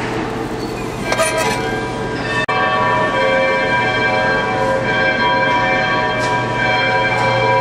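Several overlapping bell-like ringing tones, held steady and layered together, come in suddenly about two and a half seconds in over a steady low hum.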